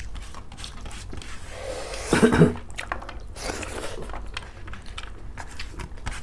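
Close-up chewing and lip-smacking of people eating rice and chicken curry by hand, many small wet clicks throughout. A louder mouth sound stands out briefly about two seconds in.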